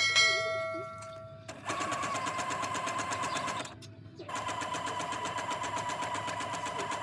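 A ding sound effect rings out at the start and dies away over about a second and a half. Then a sewing machine runs while hemming, in two runs with a short stop about four seconds in, a steady whine with fast even needle ticking.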